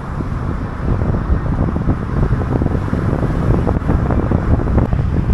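Wind buffeting the microphone: a loud, gusty low rumble with irregular thumps.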